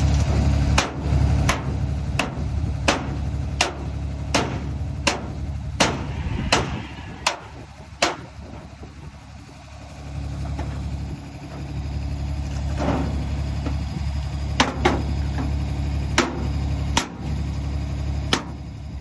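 A hammer striking metal repeatedly: a steady run of sharp blows about every 0.7 s for the first eight seconds, then a handful of spaced strikes later on. A truck engine idles underneath, dropping away for a couple of seconds in the middle.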